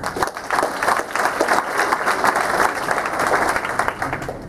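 Audience applauding: a dense patter of many hands clapping that starts just after the start and fades out near the end.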